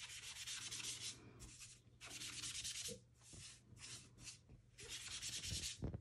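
A sponge loaded with watered-down Distress Oxide ink is scrubbed across cardstock and the craft mat. It makes a dry, rasping rub in repeated strokes, each lasting up to about a second, with short pauses between.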